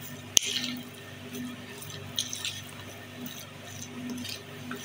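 Moist mince-and-lentil samosa filling being stirred in a plastic bowl: soft wet squishing, with one sharp click near the start and a few faint clicks later.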